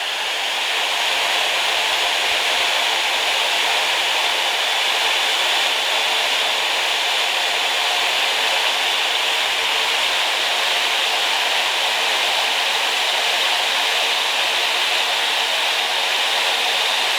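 Vacuum motor spinning a belt-driven set of blades near top speed, drawing about 8 amps: a loud, steady rushing whir of motor and blades that builds slightly at first and then holds.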